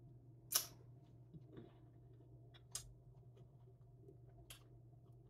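Quiet eating sounds: a few short, sharp clicks, the loudest about half a second in, over a low steady room hum.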